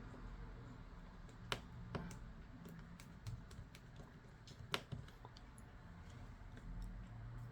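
Faint scattered clicks and taps of a small precision screwdriver and tiny screws against a smartphone's plastic frame as screws are driven in, with a few sharper clicks about one and a half, two and nearly five seconds in.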